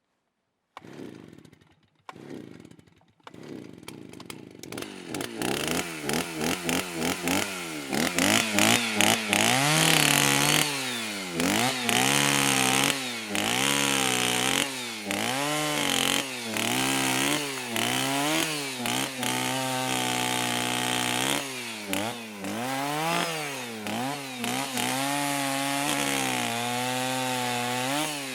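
Chainsaw engine starting: a few short bursts, then it catches and runs. It is then revved up and down over and over, the pitch rising and falling with each rev.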